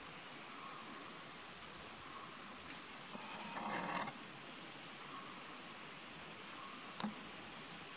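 Forest ambience with a steady high-pitched insect drone that swells and fades. About a second of louder noise comes between three and four seconds in, and a single sharp click about seven seconds in.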